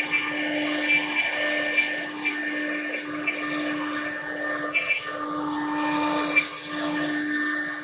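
CNC router spindle running with a V-bit engraving into an MDF board: a steady whine over a light cutting hiss, with occasional small ticks.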